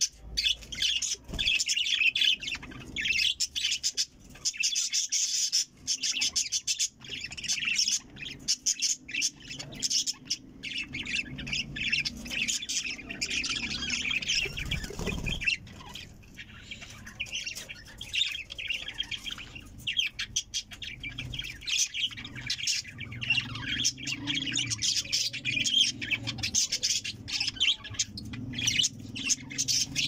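A flock of budgerigars chattering and warbling without pause: a dense stream of rapid, high chirps and squeaks from several birds at once.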